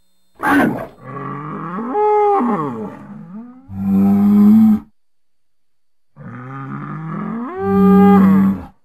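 A bull mooing: a short call at the start, then two long, drawn-out moos, each ending in a louder, deeper held note, with a silent gap between them.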